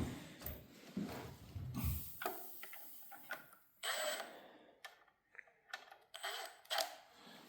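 Scattered metallic clinks and knocks of hand tools and parts being handled on a small-block Chevy 350 engine during teardown. One clink about four seconds in rings briefly.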